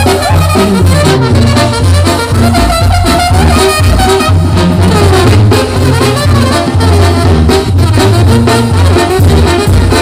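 Live Mexican banda sinaloense playing loud: trumpets, trombones and clarinets over a sousaphone bass line and drums.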